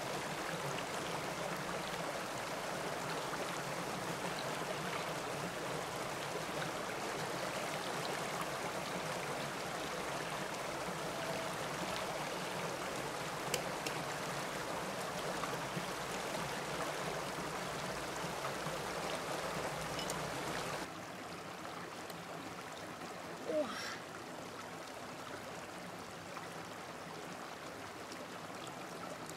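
Shallow stream running over rocks: a steady rush of water, turning quieter about two-thirds of the way through, with one short sound soon after.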